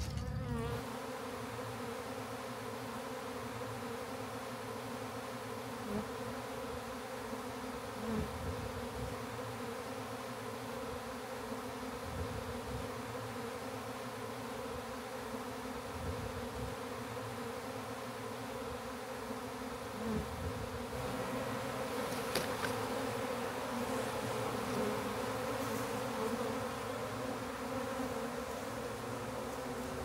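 A honey bee swarm buzzing: the steady, dense hum of many bees flying around the cluster, with a few faint knocks and rustles.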